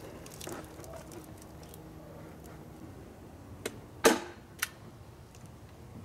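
Stiff roofing felt being unrolled and wrapped around a beehive: light rustling and crinkling, with one loud sharp snap about four seconds in and a smaller click just before and after it.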